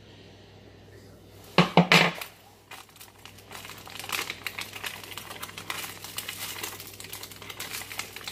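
A small clear plastic bag of cabinet-handle screws crinkling irregularly as it is handled and opened, from about three seconds in. It follows a short, loud sound about a second and a half in.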